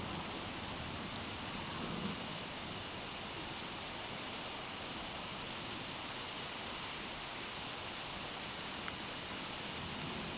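Night insect chorus, a continuous high trill, over a steady background hiss.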